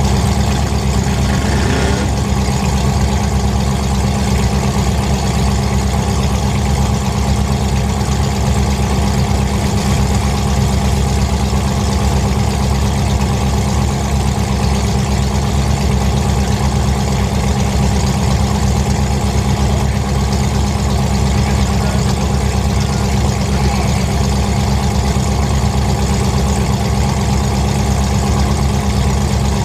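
Demolition derby car's engine idling steadily, with a deep, even rumble and no crashes.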